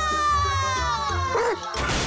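A high cartoon voice holds a long call of "Pogo!" that falls steadily in pitch, over background music. Near the end comes a crash as a cartoon dog bursts through a metal garage door and sends motorcycle parts flying.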